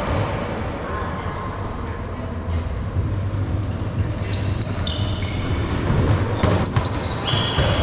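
Rubber dodgeballs bouncing and thudding on a hard court floor, with sneakers squeaking, in a large echoing hall. The squeaks and knocks pick up in the second half.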